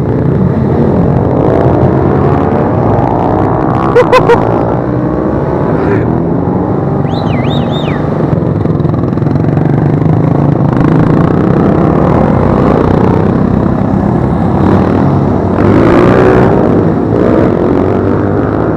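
A procession of motorcycles and quad bikes riding slowly past, their engines running in a continuous overlapping drone. Three short loud beeps sound about four seconds in, and one louder bike swells past near the end.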